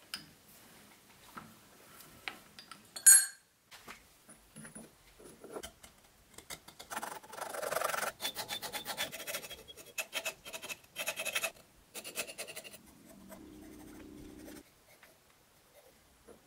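A steel scriber scratching short layout marks into a freshly milled metal block along a rule: a run of short scraping strokes with light handling knocks and one sharp metallic clink about three seconds in. A brief low hum comes near the end.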